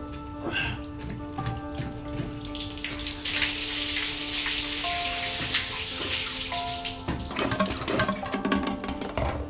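Water rushing and splashing for about four seconds in the middle, with clicks and knocks from plumbing work before and after it, over background music of held tones.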